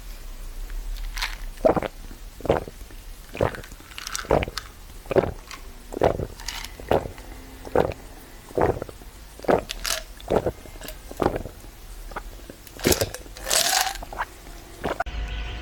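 Grape soda being gulped down in a steady run of swallows, a little more than one a second.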